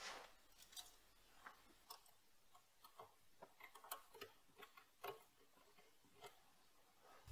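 Faint, irregular small metallic clicks and taps from a tool holder and hex key being handled on a lathe's quick-change toolpost.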